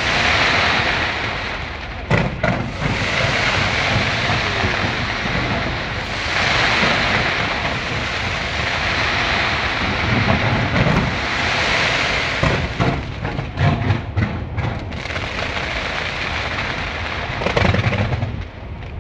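Skyscraper fireworks display going off in a dense, continuous crackle, with a run of sharp bangs about two seconds in and a cluster of bangs and low booms from about twelve to fifteen seconds in.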